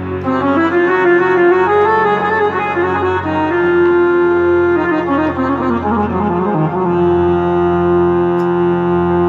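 Instrumental break of a Tajik ghazal: a keyboard synthesizer plays a winding melody in a reedy, saxophone-like voice over a steady low drone. The melody holds a long note, runs downward, then settles on another long held note near the end.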